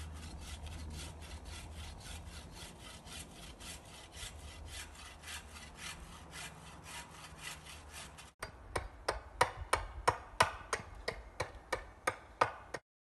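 Bow saw cutting through a branch with steady back-and-forth strokes, about four a second. An abrupt break a little past halfway, then an axe chopping wood on a stump with a quick run of sharp, loud strikes.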